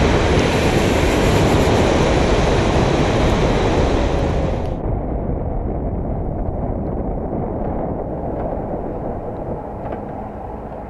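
Motorcycle riding on wet asphalt: a steady rush of wind, engine and tyre noise. About four and a half seconds in, the high end cuts off suddenly, leaving a muffled rumble that slowly fades.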